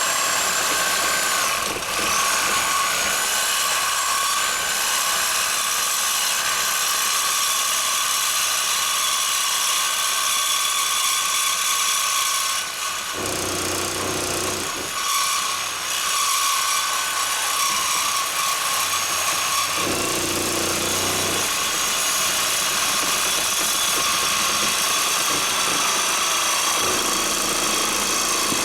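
Handheld power cutting tool with an abrasive cut-off wheel spinning up with a rising whine, then running steadily as it cuts through steel exhaust pipe, the whine dipping briefly about two seconds in and a lower grinding rumble coming in twice as the wheel bites.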